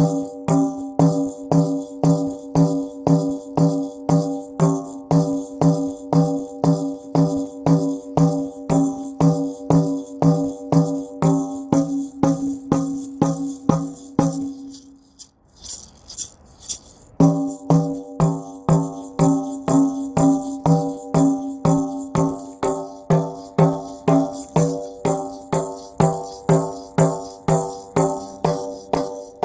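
A steady, repeating drum beat, about two hits a second, with a jingling top and a held low tone under it. It stops for a couple of seconds about halfway through, then picks up again at the same pace.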